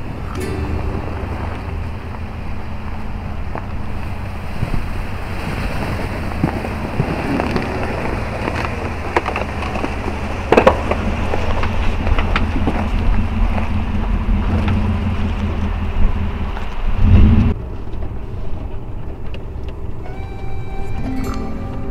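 Ford Raptor pickup driving over a rough dirt trail: a steady low rumble of engine and tyres, with scattered knocks, crunches and scrapes from rocks and brush against the truck. A loud thump comes about 17 seconds in; the rumble then drops and music comes in near the end.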